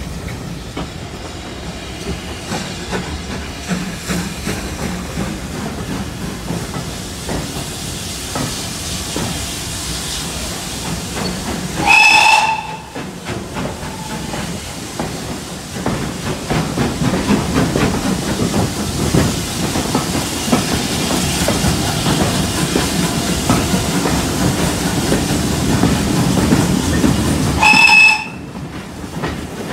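Steam train running, heard from a carriage window: steady steam hiss and running noise that grows louder once the train enters a tunnel. A short steam-whistle blast sounds about twelve seconds in and again near the end, the loudest sounds here.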